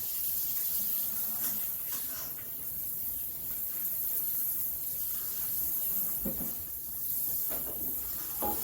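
Steak sizzling in a frying pan: a steady hiss.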